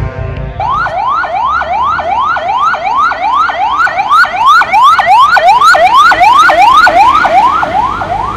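Emergency vehicle's electronic siren in a fast yelp: quick rising sweeps about three a second, each dropping back sharply. It starts just under a second in.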